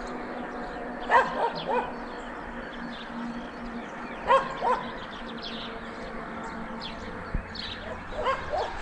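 A dog giving short, high, pitched calls in three groups of two or three, a few seconds apart, over a steady background hiss.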